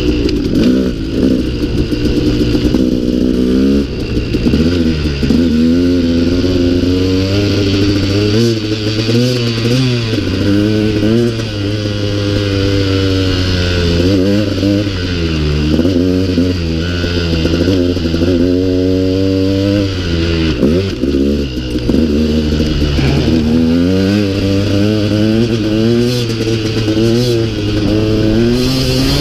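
2016 KTM 200 XC-W single-cylinder two-stroke dirt bike engine under way, heard close up from the bike. Its pitch climbs and falls again and again as the throttle is worked, with a few brief drops where the throttle is rolled off.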